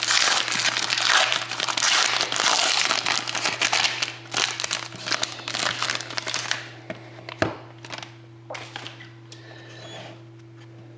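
Plastic wrapping crinkling and crumpling as a sealed trading-card box is unwrapped by hand, dense for about six seconds, then a few scattered rustles and a sharp tap before it goes quieter.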